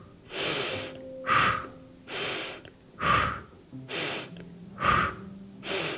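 A woman's quick, loud breathing in a yoga breathing exercise: sharp inhales and exhales in turn, about one a second, some seven breaths in all.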